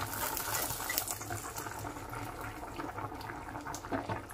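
Vegetable curry boiling and bubbling in the pan, with crackling sizzle from the hot mustard-oil tempering of black cumin and green chilli just stirred in. The crackle is busiest in the first second and thins out, leaving a steady bubbling simmer.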